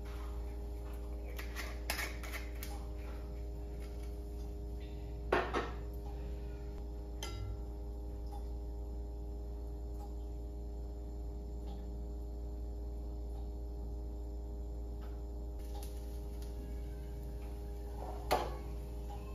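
Pots, pans and utensils clinking and knocking at the stove: a few light clinks about two seconds in, a louder pair of knocks at about five seconds, and another loud knock near the end, over a steady low hum.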